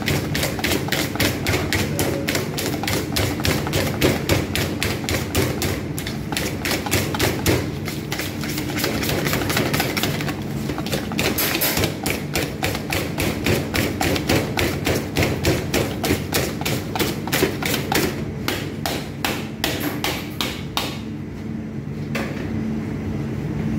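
Wire balloon whisk beating cream cheese in a large stainless steel bowl, clinking against the metal side in a fast, steady rhythm of several strokes a second that slows and stops near the end. A steady low hum runs underneath.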